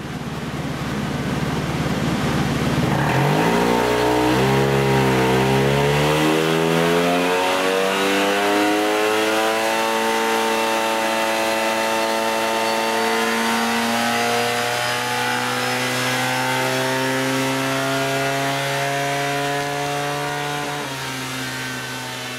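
Yamaha TMAX scooter's parallel-twin engine, fitted with an OUTEX aftermarket muffler, on a dynamometer power run. After a rough, noisy first few seconds the exhaust note climbs steadily in pitch for about eighteen seconds, then drops suddenly near the end as the throttle is closed.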